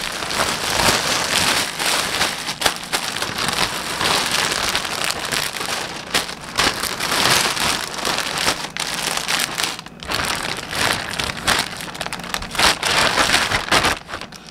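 Clear plastic garment bags and a grey poly mailer bag crinkling and rustling as hands handle and sort the wrapped clothes: a steady rustle full of sharp crackles, dropping off near the end.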